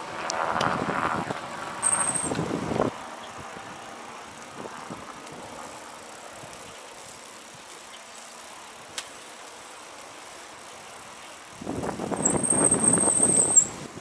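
Bicycle on the move with a high-pitched brake squeal: brief about two seconds in, then held for over a second near the end. Rushing noise of the ride swells at the start and again with the second squeal, and a quieter steady rush of riding fills the middle.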